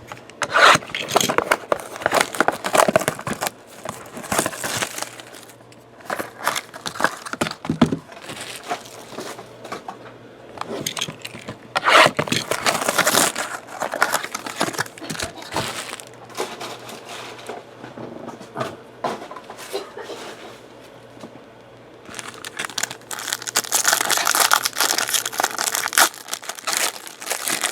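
Sealed boxes of trading cards being torn open: plastic shrink-wrap and cardboard crinkling and tearing in uneven bursts, with quieter rustling of handled packs in between.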